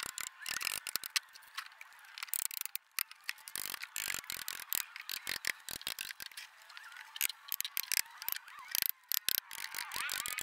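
Socket ratchet wrench clicking in quick runs with short pauses as it tightens nuts onto threaded rod clamping a stack of wooden boards.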